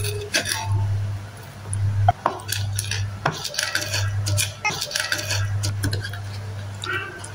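A serving spoon clinking and scraping against ceramic plates as chicken in sauce is served onto rice: many short clinks and knocks, a few of them ringing briefly, over a steady low hum.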